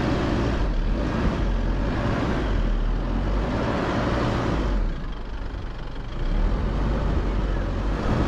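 A four-wheel-drive vehicle on the move: engine and driving noise with a heavy low rumble. It eases off slightly about five seconds in, then picks up again.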